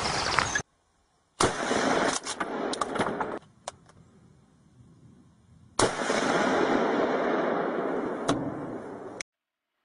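Gunshots: a sharp shot about a second and a half in and another near six seconds, each followed by a couple of seconds of rushing noise, with a few lighter cracks in between. Each burst stops abruptly.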